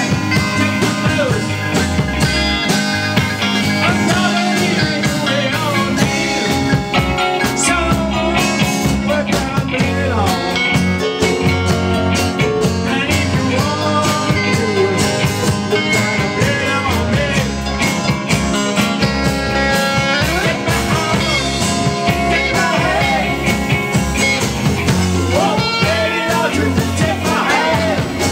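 Rock band playing live in a rock-and-roll and blues style: electric guitars, bass and drum kit with a steady beat, and a lead vocal.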